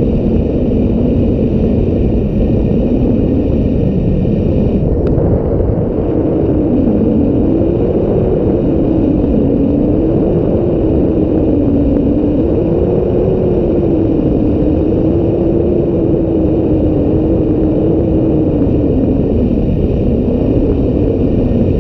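Strong wind buffeting the microphone with a loud, steady rumble, and a faint howling tone that wavers up and down.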